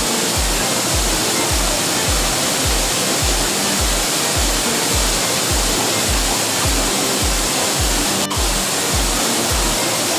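Waterfall with the steady rush of falling water, mixed with background music carrying a regular bass beat about twice a second.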